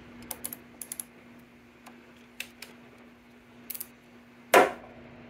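Light clicks and taps of small parts being handled while a throttle linkage hook is fitted to the carburetor of a Vespa P200E, with one louder knock near the end. A steady low hum runs underneath.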